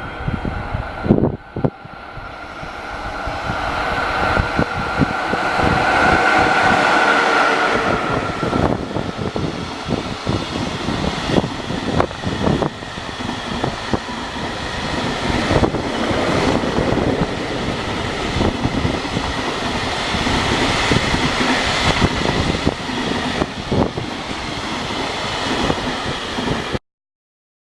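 A train passing close by, its wheels clicking over the rail joints in a steady run of knocks. It builds over the first several seconds and cuts off suddenly near the end.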